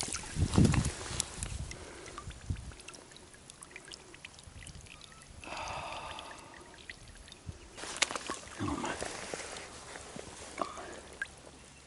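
Shallow dam water sloshing and dripping as a released fish swims off and a hand moves in the water, with low knocks and small splashes about half a second in and again around eight seconds.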